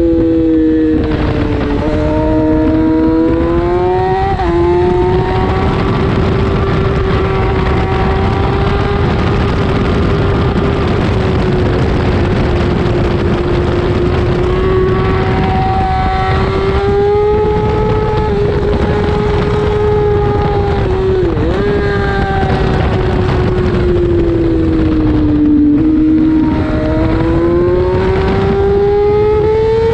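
Race motorcycle engine running hard at high revs, heard from a camera mounted on the bike, over a steady rush of wind. The pitch climbs and eases as the bike accelerates and slows. It drops sharply about four seconds in, dips briefly around twenty-one seconds in, and sinks, then climbs again, near the end.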